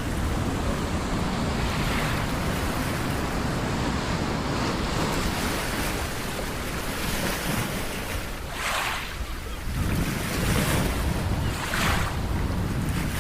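Ocean surf breaking and washing up the shore, with several louder surges in the second half, and wind buffeting the microphone with a steady low rumble.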